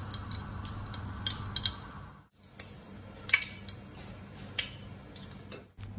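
Mustard seeds in hot coconut oil in a steel pan, sizzling with scattered sharp pops and crackles. The sound breaks off briefly a little past two seconds in.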